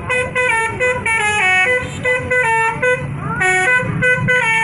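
Indonesian bus "telolet" horn: a multi-tone musical air horn playing a quick tune of stepped notes with short breaks between phrases.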